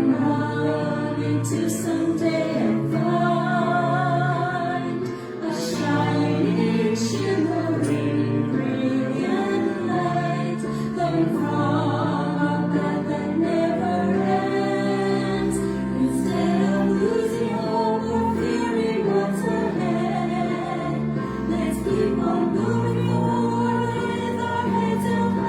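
Music: a group of voices singing a slow song over sustained low accompanying notes.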